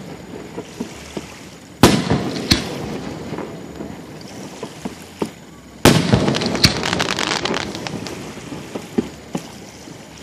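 Fireworks exploding: a sharp bang about two seconds in and another half a second later, then a loud bang about six seconds in followed by a couple of seconds of dense crackling, with scattered smaller pops between.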